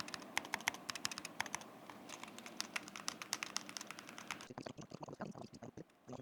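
Fast typing on a Mongseek FUN60 Ultra keyboard with TMR magnetic switches: a rapid run of keystroke clicks. About four and a half seconds in, the keystrokes turn lower and duller, then stop shortly before the end.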